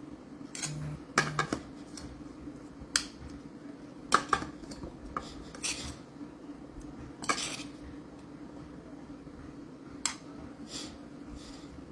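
A metal spoon scraping and clinking against a plate and a plastic measuring cup while scooping grated carrot, in irregular taps and scrapes every second or two. A steady low hum runs underneath.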